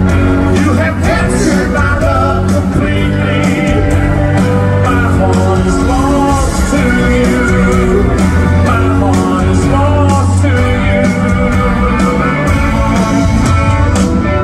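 A live country-rock band playing loud through the concert PA, with lines of electric guitar over steady bass and drums. It is an instrumental stretch of a song with no lyrics sung.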